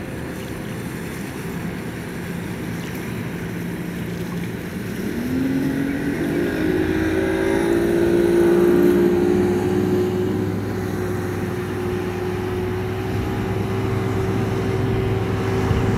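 Motorboat engine running at speed as the boat approaches: its hum comes in about five seconds in with a rising pitch, then holds steady and grows louder toward the end.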